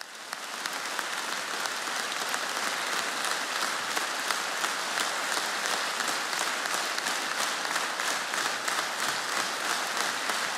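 Large seated audience applauding, the clapping building up over the first second or two and then holding steady.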